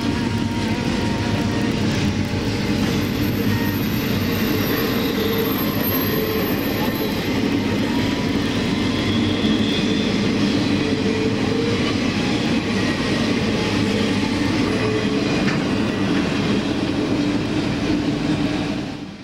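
Union Pacific intermodal freight train of container and trailer cars rolling past at speed: a steady rumble and clatter of wheels on rail, fading out near the end.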